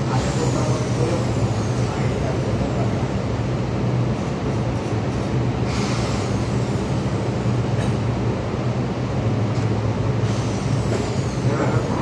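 A steady low mechanical drone of running machinery, with a brief hiss about halfway through.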